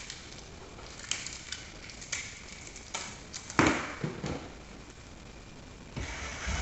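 Handling noise from coaxial and HDMI cables being worked through a plastic brush wall plate: scattered clicks and rustles, with a single louder thump about three and a half seconds in.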